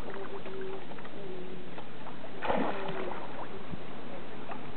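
Shallow seawater lapping and splashing as grey mullets move at the surface, with small splashes throughout and a louder splash about two and a half seconds in.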